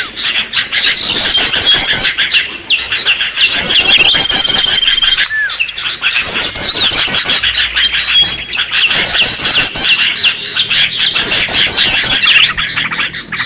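Green leafbirds (cucak ijo) calling noisily, a dense rowdy chatter. Rapid series of high, hooked chirps come in repeated bursts, with short steady whistles and quick sharp notes between them.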